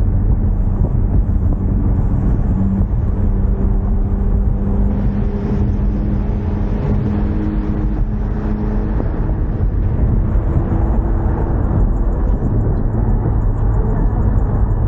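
Ford Mustang EcoBoost driving at a steady pace: a continuous engine drone and low road rumble with no big revs.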